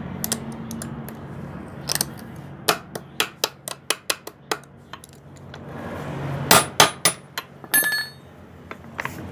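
Metal hammer striking the universal-joint yoke of a Mahindra TUV300 propeller shaft: a quick run of light taps, then a few heavier blows, the last one near eight seconds leaving a short metallic ring.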